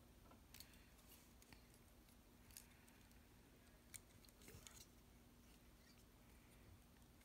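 Faint clicks and light rattles of plastic Lego bricks being handled and pressed together, a handful of soft clicks spread through an otherwise near-silent stretch, over a faint steady hum.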